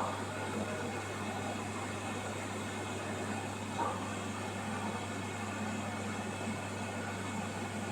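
Aquarium filtration equipment running with a steady low hum and constant hiss, with a faint brief sound just under four seconds in.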